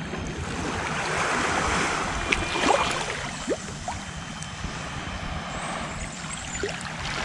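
Small waves gently lapping and washing on a sandy shore, swelling and easing, with wind buffeting the microphone.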